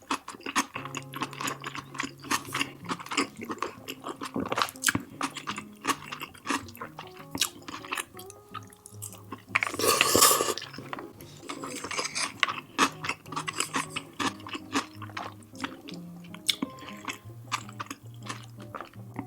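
Close-miked chewing and wet mouth sounds of someone eating biryani rice, with many small clicks, over soft background music. About halfway through comes one louder, noisier sound lasting about a second.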